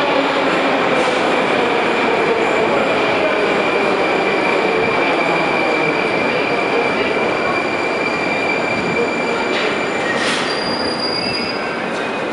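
Moscow Metro train running through the station: a loud steady rumble with a high wheel squeal and a motor whine that falls slowly in pitch over the first few seconds. The squeal fades out near the end, just after a short sharp sound.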